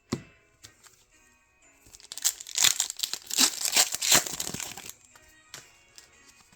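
Foil Pokémon TCG booster pack wrapper being crinkled and torn open, a dense burst of crinkling for about three seconds in the middle, over faint background music.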